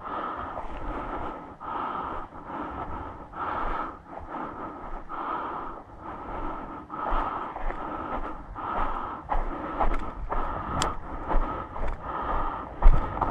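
A person breathing heavily and rhythmically close to the microphone, each breath swelling and fading about once a second. A single sharp click comes near the end.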